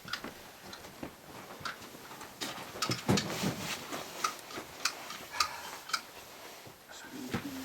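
Scattered light clicks and taps at irregular spacing, with a few louder knocks about three seconds in.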